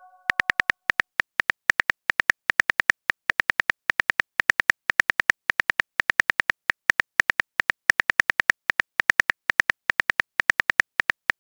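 Smartphone keyboard key-click sound effect repeating rapidly, about six clicks a second, as a message is typed out letter by letter.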